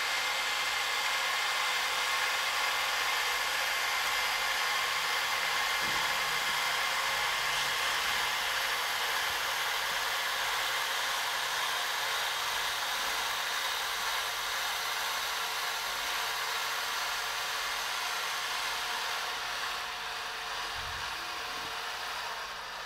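Sky-Watcher AZ-GTi telescope mount's motors slewing at full speed in a GoTo: a steady electric whine with several tones, easing slightly near the end as the slew finishes and cutting off.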